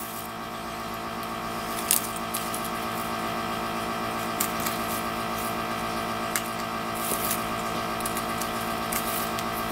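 Small hand nippers snipping flower stalks and a dead twig off a pieris japonica cutting: scattered sharp clicks every second or so, over a steady background hum.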